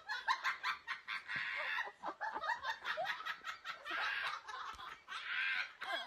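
A person laughing in a long run of short, rapid bursts, picked up by a doorbell camera's microphone.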